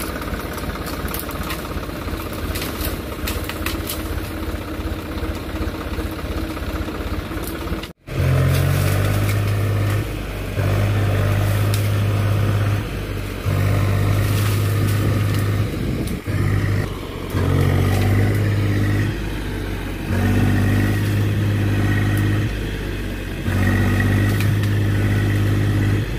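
Tractor engine running under load as it drags a bamboo clump out by a rope. After an abrupt break about eight seconds in, it revs in repeated surges of two to three seconds each, with slightly quieter dips between them.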